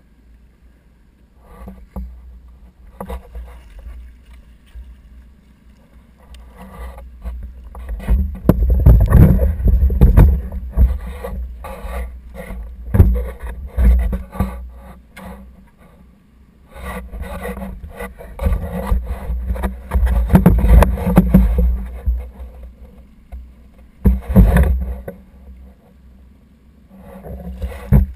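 Splashing, knocks and rubbing on a kayak while a white seabass is brought aboard and handled, coming in irregular loud spells after a quiet start.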